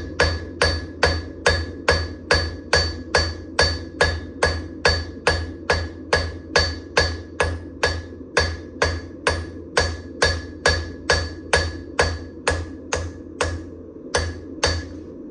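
Hammer forging a damascus steel knife blank: steady blows at about two and a half a second, each strike ringing. A steady low hum runs underneath.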